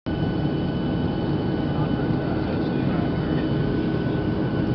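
Steady cabin roar of a Boeing 737-800 on approach, heard inside the cabin by a window over the wing: engine and airflow noise, with a few thin steady whining tones above it.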